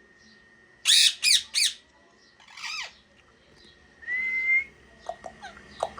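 Parrot calling: three loud, harsh squawks in quick succession about a second in, another squawk a little later, then a short rising whistle, and a string of short chirps near the end.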